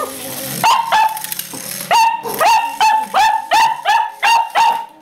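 Cavalier King Charles Spaniel barking at a toy car she is frightened of: a couple of high-pitched barks early, a short pause, then a rapid string of barks about three a second.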